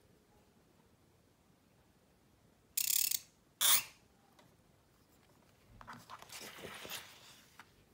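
Calligraphy pen nib scratching across paper: two short scratches about three seconds in, then a longer rasping stroke from about six to seven seconds.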